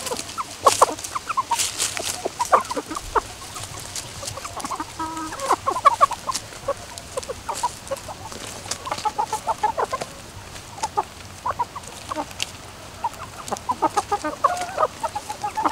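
A mixed flock of young Asil and Liege fighter chickens clucking, with many short calls overlapping one another throughout.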